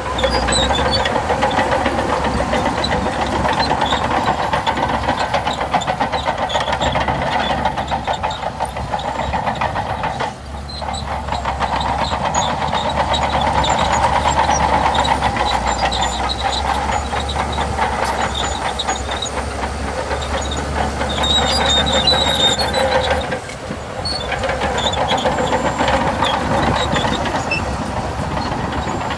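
Shantui DH17C2 crawler bulldozer working: diesel engine running under load with a rapid, steady clatter of steel tracks. The sound dips briefly about a third of the way in and again near four-fifths of the way.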